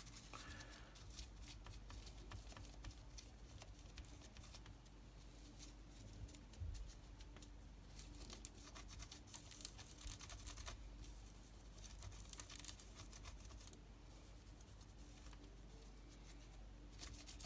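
Faint scratchy rubbing with small irregular clicks: a cloth wiping old thermal paste off the processor and graphics chip on a bare laptop motherboard.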